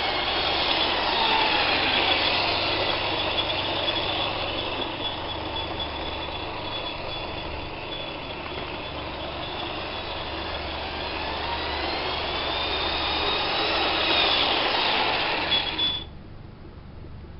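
Lima O-gauge model train running on sectional track: the electric locomotive's motor whines and the wheels rattle over the rails. The whine rises and falls in pitch and loudness as the train passes close by, and the sound drops off sharply about a second before the end.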